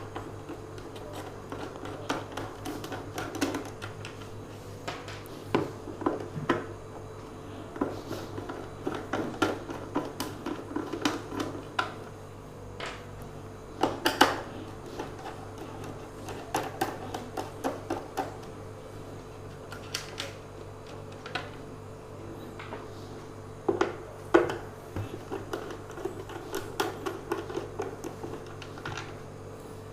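Irregular clicks, taps and scrapes of a hand tool and plastic and metal parts as a mixer grinder is taken apart.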